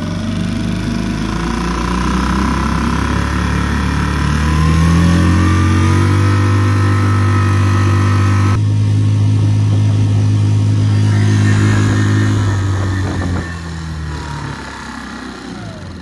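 Tohatsu 3.5 HP outboard motor on an inflatable dinghy opening up, its pitch rising for the first few seconds, then running steadily at full throttle with the trim two positions up, a setting that proves slower than the last one. Near the end it is throttled back and the engine note drops away.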